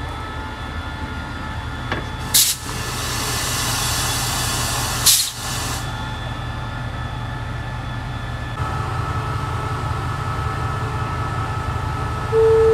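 A QSY diesel-electric locomotive idles at a standstill. Its air brakes let out two sharp blasts of compressed air about three seconds apart, with a hiss running between them. Its engine note steps up about two-thirds of the way through, and a few steady chime-like tones begin just before the end.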